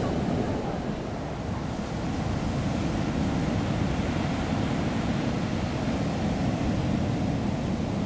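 Ocean surf breaking on a sandy beach: a steady rushing wash of waves, with wind buffeting the microphone as a low rumble.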